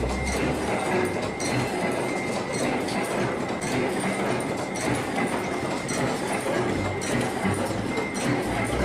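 Factory machinery running with a dense, rapid clatter and a faint steady high whine.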